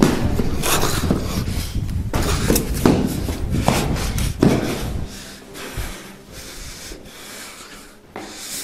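Rustling, scraping noise with irregular knocks from a handheld camera being jostled as it moves. It drops to a quieter level about five seconds in.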